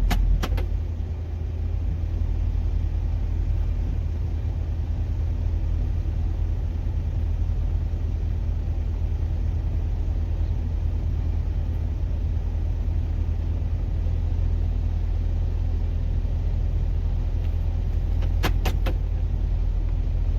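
Steady low rumble of a vehicle on the move, with a few short clicks just after the start and again near the end.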